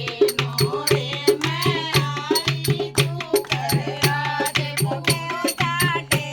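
Haryanvi folk song: a voice sings a wavering melodic line over a drum keeping a steady beat.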